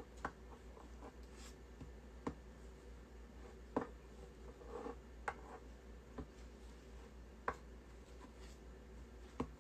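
Faint, scattered clicks and taps, about seven spread irregularly through a quiet room.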